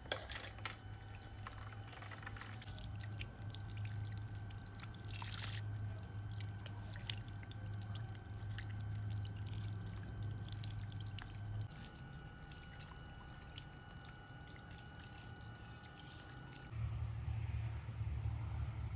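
Faint water pouring and trickling, with many small clicks and knocks of handling. Near the end the background changes to a steadier, lower hum.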